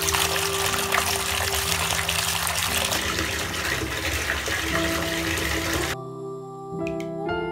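Water running from a chrome bath tap into a bathtub, a steady gush that cuts off about six seconds in, with soft background music underneath and continuing after.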